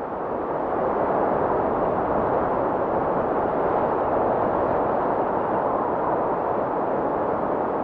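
A steady, even rushing noise with no distinct tones or beats, swelling up from silence over the first second and then holding level.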